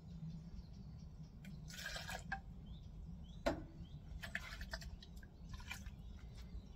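Rabbit and vegetable sauce simmering in a cast-iron Dutch oven as cream is poured in: soft liquid drips and pops over a low steady rumble, with a light knock about three and a half seconds in.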